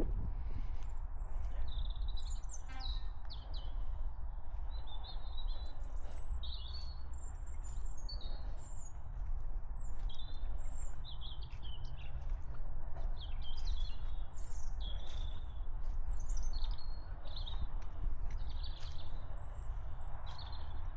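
Small birds chirping and singing all around, many short high calls overlapping throughout, with a brief rattling run of ticks about three seconds in. Under them runs a steady low rumble.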